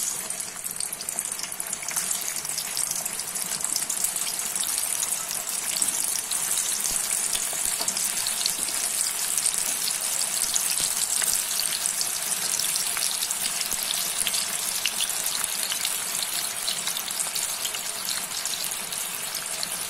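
Boiled bitter gourd (karela) slices frying in hot oil in a kadai: a steady sizzle with many fine crackles.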